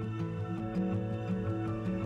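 Soft background music: sustained tones over a slowly moving bass line.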